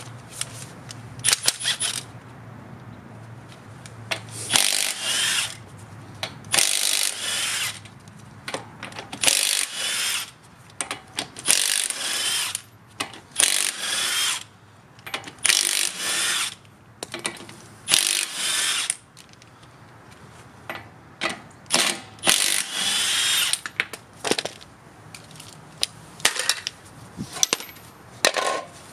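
Lug nuts being spun off a truck's front wheel with a power tool, in about twenty short spells at uneven gaps, with a low hum between them.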